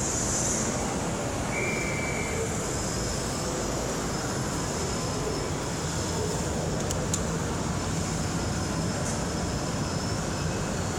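Steady background noise of a large indoor exhibit hall, an even rumble and hiss, with a couple of faint clicks about seven seconds in.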